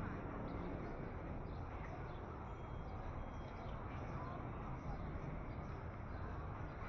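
Ambience of a busy covered market: a steady low hum and murmur of distant voices, with a few faint, short high chirps scattered through it.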